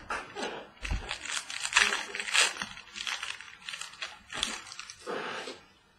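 Trading-card pack wrappers crinkling and tearing as packs of football cards are ripped open, with a soft knock about a second in.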